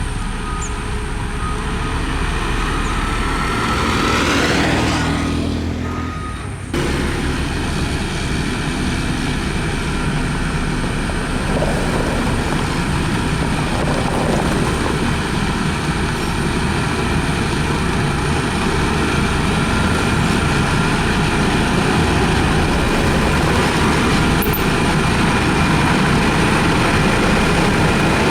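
Heavy road-construction machinery (motor grader and road roller) working, its diesel engine running steadily. The sound rises a few seconds in, then changes abruptly about seven seconds in to a similar steady engine noise.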